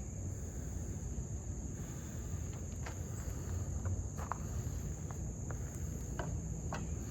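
Crickets trilling steadily in one high, unbroken tone, with a few faint ticks scattered through.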